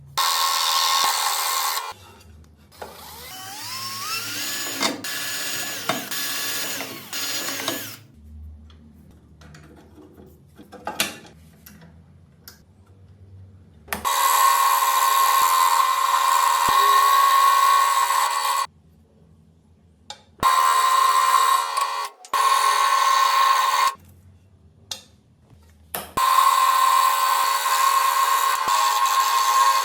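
Power tool motor running at a steady high whine in several bursts of a few seconds, broken by abrupt cuts, with quieter stretches between them where a tone rises as if the motor is spinning up.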